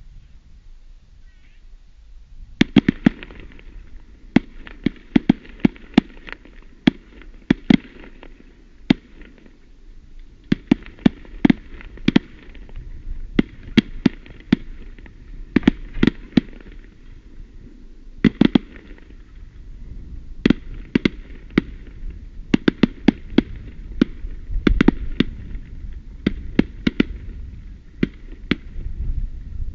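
Fireworks display: distant aerial shells bursting in an irregular series of sharp bangs, several a second at times, starting about two and a half seconds in. A low rumble underneath grows toward the end.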